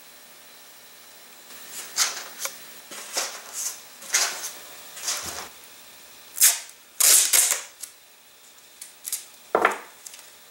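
Masking tape pulled off the roll in short rips and torn into strips, several times over, with a dull knock about five seconds in and another near the end as the fin and jig are handled.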